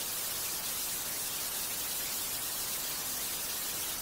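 Television static sound effect: a steady hiss of white noise that cuts off abruptly at the very end.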